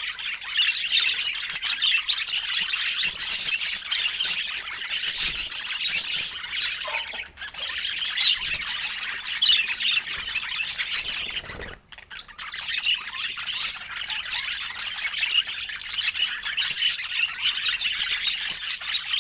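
Budgerigars chattering and warbling in a dense, continuous stream of high chirps and squawks, with two brief breaks about seven and twelve seconds in.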